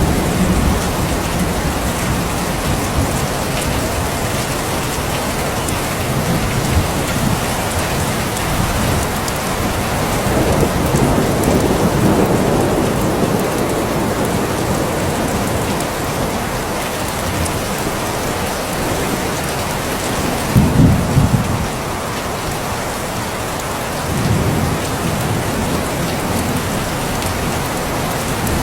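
Steady rain falling, with low rumbles of thunder swelling up several times; the loudest is brief, a little past the middle.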